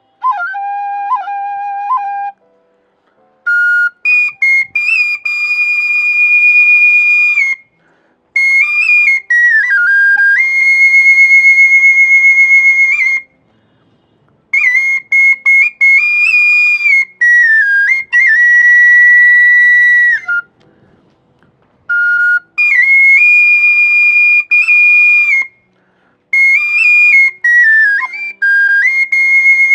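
Bansuri (bamboo flute) playing a slow pahadi folk tune: long held notes linked by quick ornamental turns and slides, in phrases broken by short pauses for breath.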